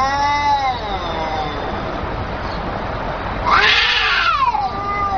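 Domestic cats in a standoff caterwauling: a long wavering yowl that trails off in the first second and a half, then a louder yowl about three and a half seconds in that falls in pitch.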